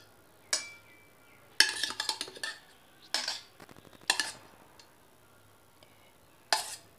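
Steel spoon clinking and scraping against a stainless-steel pot and plate in about five short bursts of clatter, as yogurt-coated fried eggplant slices are lifted out and set down on the plate.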